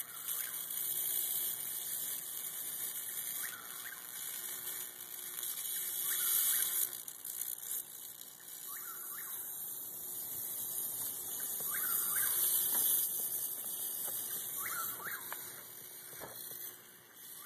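Bug zapper's high-voltage grid arcing through an insect stuck between its wires, the bug burning: a sustained high-pitched sizzling crackle with short rising squeals every second or two, dropping away near the end.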